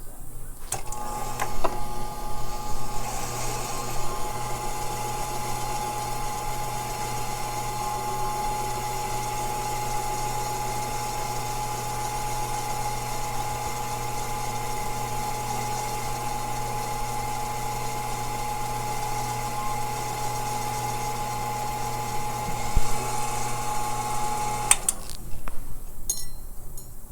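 Faceting machine's motor and lap running with a steady hum and whine while a gemstone is held by hand flat against the spinning lap to cut out a scratch on its table facet, with louder rough contact noise just after it starts and again shortly before it stops. The motor cuts off about two seconds before the end.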